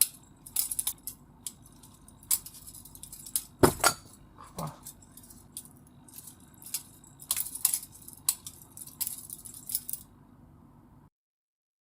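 Balisong (butterfly knife) being flipped: the handles and blade clicking and clacking against each other in quick, irregular metallic clicks, with a heavier clack a little over a third of the way in. The sound cuts off abruptly shortly before the end.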